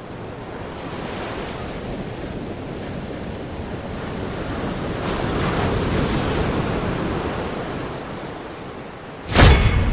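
Sea waves and wind on the microphone, a steady rushing that swells and then fades, cut by a sudden loud thump about nine seconds in.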